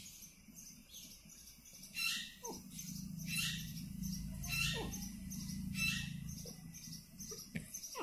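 An Alexandrine parakeet giving about five short, sharp, high-pitched calls, roughly a second apart, starting about two seconds in, over a low steady hum.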